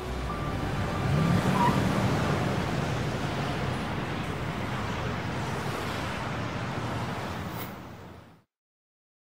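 Traffic sound effect: road noise with a car engine rising in pitch and loudest about a second or two in, then fading out a little after eight seconds.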